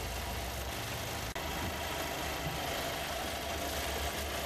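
A Volkswagen car's engine running steadily at low revs as the car creeps forward, with one faint click about a second in.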